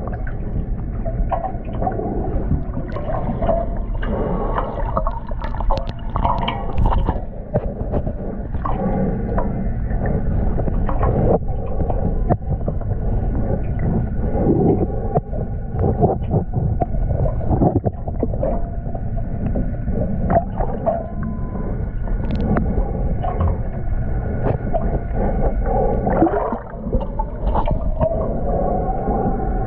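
Muffled underwater water noise heard from a submerged camera housing: steady low sloshing and gurgling with scattered clicks and faint steady tones running through it, and a swell of bubbling near the end as air bubbles rise past.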